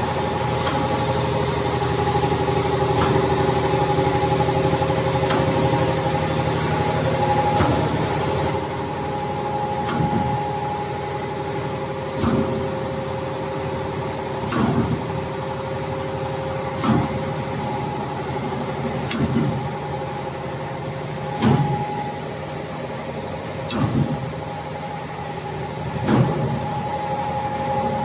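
Darin DRC-75 cereal bar cutting machine running: a steady motor hum with a few held tones, and a short knock about every two and a half seconds as the cross-cutting blade comes down through the puffed rice slab.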